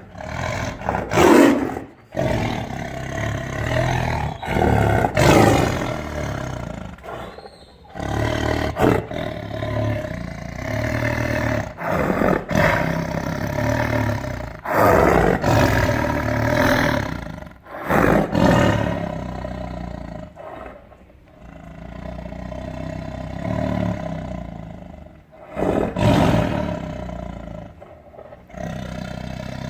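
Tiger roaring and growling over and over, a dozen or so loud roars with short gaps between them.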